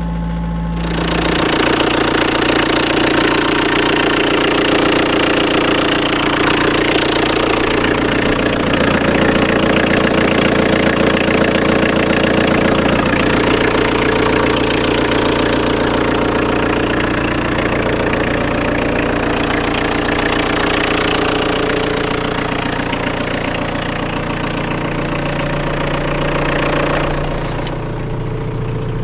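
2000 Renault Kangoo's 1.9-litre diesel engine idling steadily, getting louder about a second in and easing slightly near the end.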